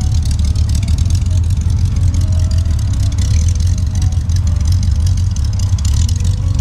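Small-block Chevrolet V8 in a 1947 Jeep Willys CJ2A idling with a steady low rumble.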